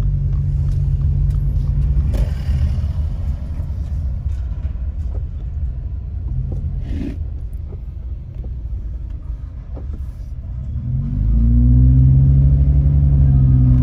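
Car engine and road rumble heard from inside the cabin while driving slowly. About eleven seconds in, the engine note climbs and grows louder as the car accelerates.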